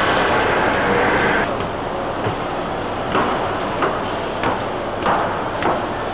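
Railway-station concourse ambience: a steady wash of noise, which changes abruptly about a second and a half in to quieter background with a run of sharp knocks about every half second.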